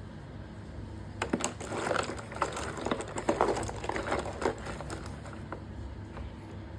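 Hands handling unboxed parcel contents and packaging: a run of light, quick clicks and crinkles from about a second in until about four and a half seconds.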